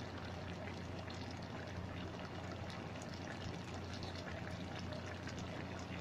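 Pot of pakbet vegetable stew boiling on the stove: a steady bubbling of the broth with many small pops.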